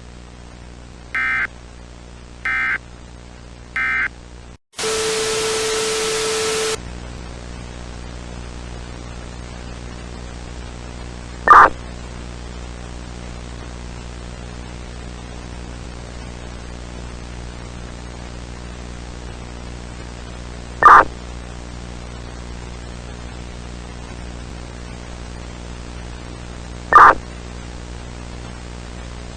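Emergency Alert System end-of-message data tones: three short two-tone digital bursts about a second apart. They are followed by a two-second burst of loud static with a steady tone in it, then steady hiss and mains hum broken three times by a loud, short blip.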